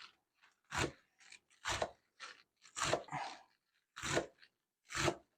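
Knife chopping fresh greens (carrot tops and onions) on a cutting board: five crunching cuts, about one a second.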